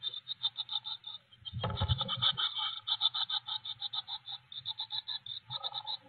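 Blue tit nestlings begging inside the nest box: a continuous run of rapid high-pitched calls, about eight a second. There is a low thump and scuffle just under two seconds in.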